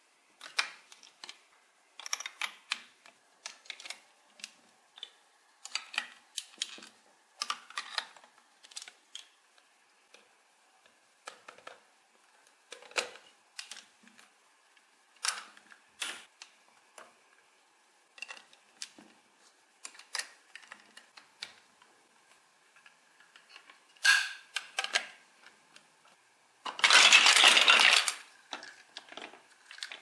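Large plastic building bricks being handled and snapped together: scattered sharp clicks and taps of plastic on plastic, with a loud rattling clatter lasting under two seconds near the end.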